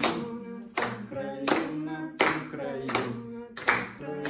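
A cappella singing with hand claps keeping the beat, about one clap every three quarters of a second.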